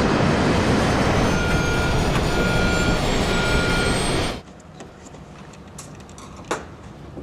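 Loud rushing roar of an airliner in trouble, with a warning alarm beeping three times and a faint rising whistle. The roar cuts off suddenly about four seconds in, leaving a quiet background with a few faint clicks.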